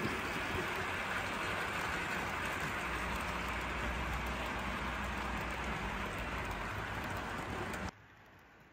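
Steady rushing rattle of model trains running along the track of a model railway layout. It cuts off sharply near the end, leaving a much quieter background.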